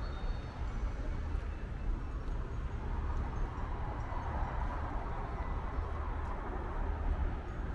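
Road traffic noise: a steady low rumble, with a vehicle swelling past around the middle.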